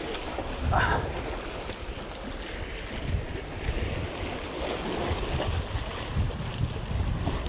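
Small sea waves washing against the boulders of a rock breakwater, with wind buffeting the microphone.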